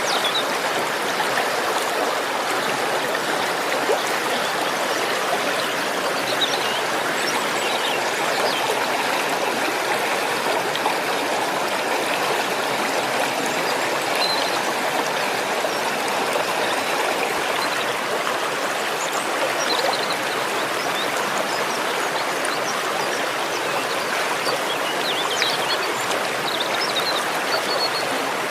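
Waterfall: water rushing and splashing steadily without a break, with a few faint high chirps now and then.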